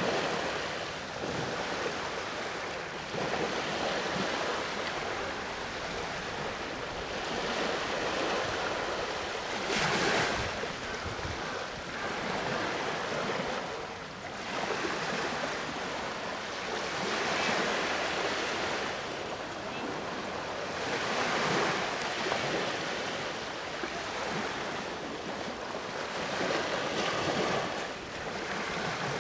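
Sea waves breaking on the shore, a continuous wash of surf that swells and falls back every few seconds, with the loudest wave about ten seconds in.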